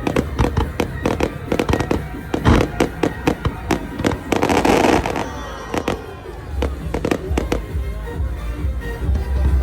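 Fireworks going off in quick succession: many sharp bangs, with a dense crackling burst a little under halfway through. Music plays underneath.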